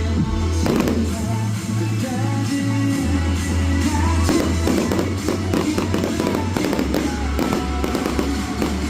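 Music with a steady bass line, with fireworks going off over it: scattered sharp bangs and crackles, a clear one just under a second in and another past four seconds.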